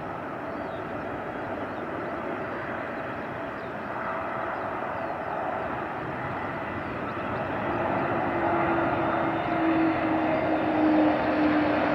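Boeing 747-8's four GEnx turbofan engines on approach, a broad jet roar growing steadily louder as the airliner nears. About eight seconds in, a steady engine tone comes in and sinks slightly in pitch.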